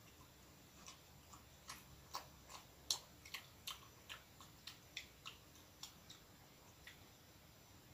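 Wet mouth clicks and lip smacks of a person chewing a soft bread roll, a quick irregular run of sharp ticks, about three a second, starting about a second in and dying away near the end.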